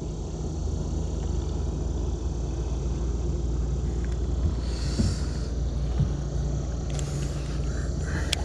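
Steady low rumble, with a short hiss about five seconds in.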